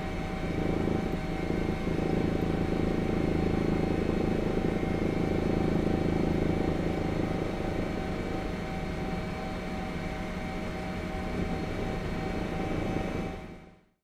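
Helicopter turbine and rotor noise heard from aboard, a steady drone with fixed high whines over a pulsing low rumble, fading out near the end.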